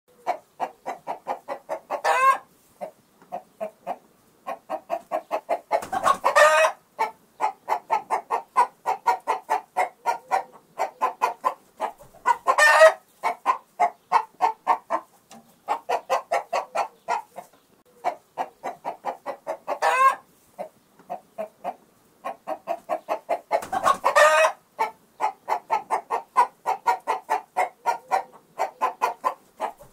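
Chickens clucking in a steady run of short calls, about four a second, with a louder squawk every few seconds.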